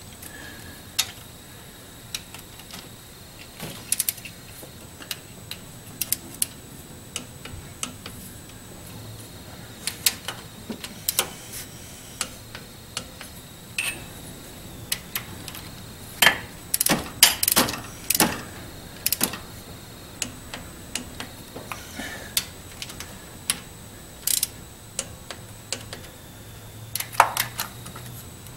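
Torque wrench ratcheting and clicking as the intake manifold bolts on a Vortec 5.7 small-block are tightened to 106 inch-pounds. The sharp clicks come at irregular intervals, with a louder run of them a little past halfway.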